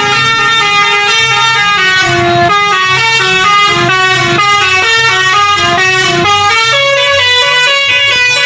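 Telolet bus horn playing a quick tune: a run of loud, held horn notes that step from one pitch to the next every fraction of a second, without a break.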